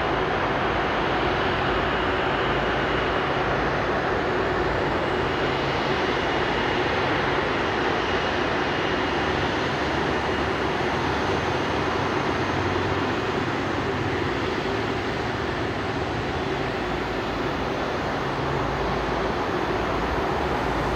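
Widebody cargo jet in DHL livery taxiing, its jet engines running at low taxi power: a steady rumble with a faint high whine, easing slightly in the second half.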